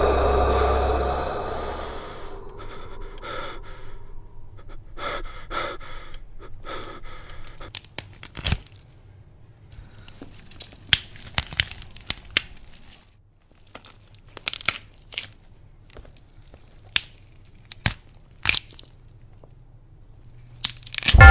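Music fading out, then faint, scattered crackles, clicks and short rustling noises over near silence.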